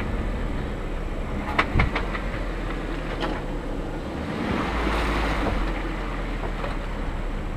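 Off-road vehicle driving slowly over a rutted dirt trail: the engine runs low and steady while the body knocks and rattles over the bumps a few times. A swell of hiss comes and goes around five seconds in.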